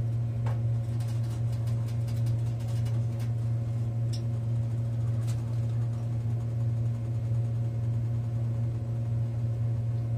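Steady low electric hum of a small appliance motor, with a few light clicks in the first half.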